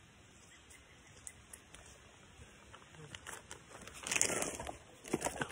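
Rustling and crinkling handling noise of a handheld phone being turned round, quiet at first, with a louder rustle about four seconds in and a few sharp clicks near the end.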